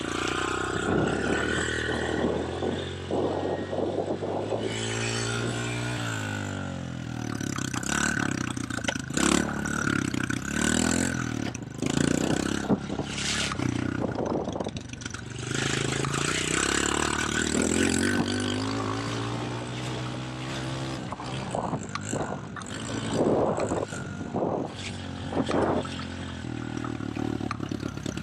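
Pit bike engine being ridden, its pitch rising and falling again and again as the throttle opens and closes, heard from a camera on the rider's helmet, with scattered knocks and rattles.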